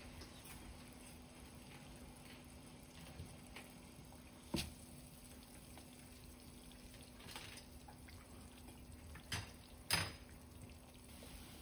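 Water boiling in a pan on a stovetop, a faint steady bubbling under a low hum. Three sharp knocks break through, about four and a half seconds in and twice near the end.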